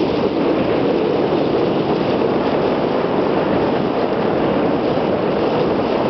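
Steady rush of wind buffeting the microphone and water washing along the hull of a sailing yacht under way.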